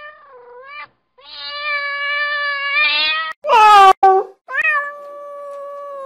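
Domestic cat meowing: a series of drawn-out meows, one long and steady, then a shorter, louder meow falling in pitch about three and a half seconds in, then another long one.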